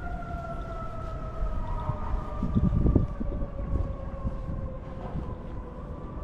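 Siren in a slow wail, one tone with a higher overtone falling gradually in pitch over several seconds, over a low rumble that swells briefly about halfway through.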